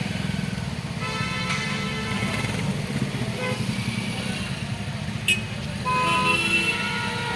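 Road traffic: a steady engine rumble with vehicle horns honking, once about a second in and again near six seconds in. A single sharp click comes about five seconds in.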